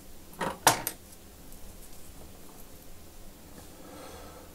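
Three sharp clicks or taps of tools and parts being handled on a repair bench, all within the first second, then faint handling noise.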